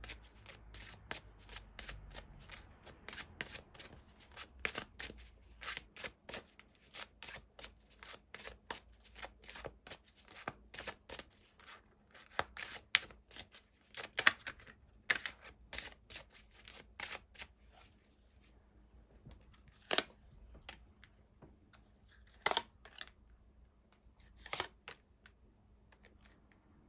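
A deck of tarot cards being shuffled by hand: a dense run of quick papery flicks and snaps for most of the time, thinning after about 18 seconds to a few separate clicks as cards are drawn and laid down.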